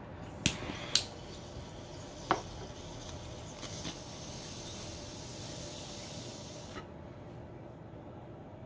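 Glass bong clinking sharply twice, then once more with a short ring, as it is gripped and set in place; then a steady hiss for about three seconds that cuts off suddenly.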